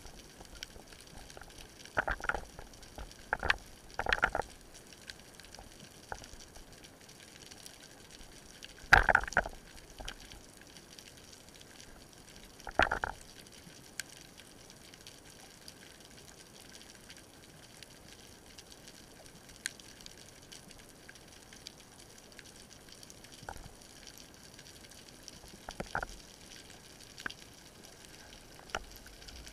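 Underwater sound recorded through a camera's waterproof housing: a steady faint hiss, broken by short bursts of water noise, the loudest about nine and thirteen seconds in.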